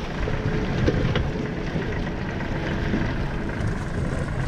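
Outboard motor running steadily at low speed, with wind on the microphone.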